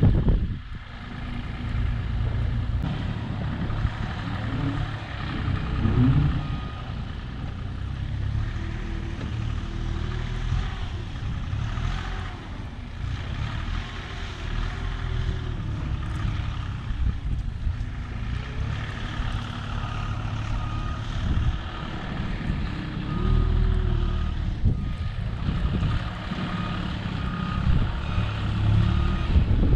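Vehicle engine running under load, revving up and down several times. In the later part a reversing beeper starts sounding in steady, evenly spaced beeps.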